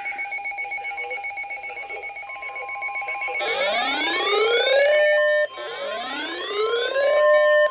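Weather radio receivers sounding their alert alarms together. A fast warbling beep tone runs first. A steady tone joins it about two seconds in, and from about three seconds in a rising whoop sweep repeats roughly every two seconds.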